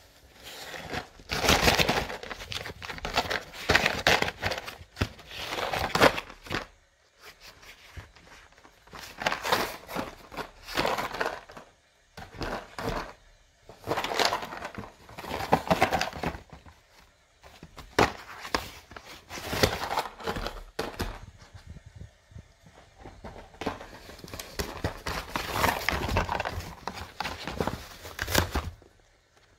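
Jack Russell Terrier tearing apart a cardboard pizza box with its teeth and paws. The ripping and crinkling come in irregular bouts of a second or two, with short pauses between them.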